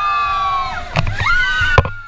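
Several people screaming together in long, high, held screams that overlap, with two sharp knocks, one about halfway and one near the end.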